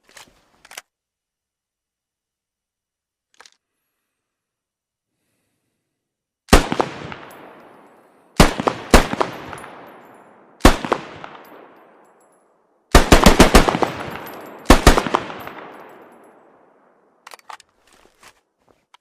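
SVD Dragunov 7.62×54mmR semi-automatic sniper rifle firing, each loud crack followed by a long echoing tail. After a few faint clicks, the shots come singly and in pairs, then as a quick string of about five, then one more.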